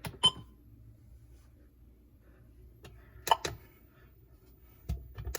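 Three pairs of short sharp clicks, each pair about a quarter second apart, over a faint low hum.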